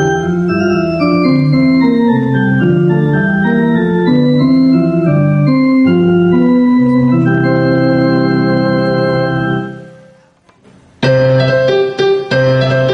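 Digital piano played in chords and melody, the notes holding steady rather than dying away. A long held chord fades out about ten seconds in, and a second later shorter, choppier notes start again.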